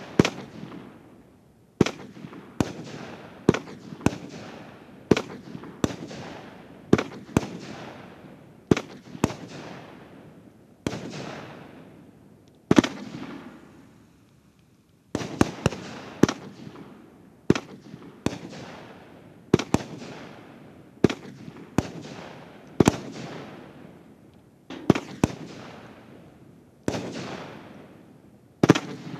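Nico 'Night Hawk' 27-shot firework battery firing shot after shot. Each rising star breaks with a sharp bang followed by a fading hiss, about one to two shots a second, with a pause of about two seconds near the middle.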